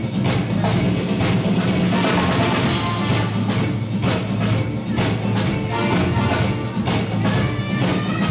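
Live band playing an instrumental passage, the drum kit keeping a steady beat over a held bass line.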